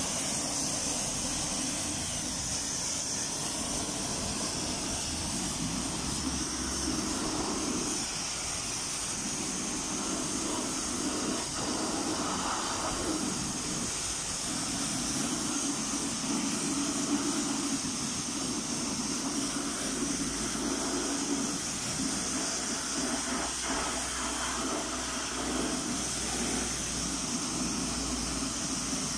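High-pressure washer jet hissing steadily as it sprays water onto car wheels and rims, the splash shifting as the jet moves across them.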